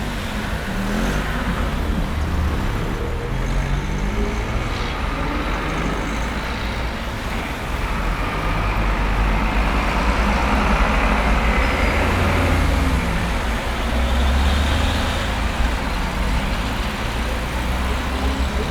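Steady road-traffic rumble of passing cars and trucks, swelling about ten seconds in as a vehicle goes by. A few faint, short high bird chirps sit over it.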